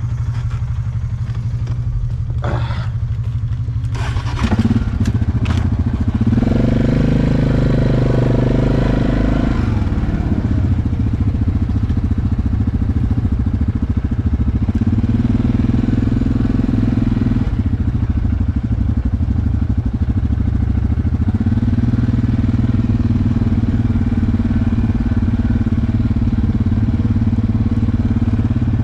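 ATV engine running under way on a trail, its pitch rising for a few seconds about six seconds in and settling back to a steady run. A few sharp knocks and rattles in the first several seconds.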